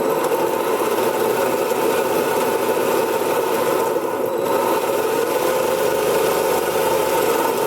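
Small benchtop lathe switched on after a repair, its motor and spindle running at a steady speed with a light rattle, then spinning down near the end. The test run is passing: the repaired lathe runs as it should.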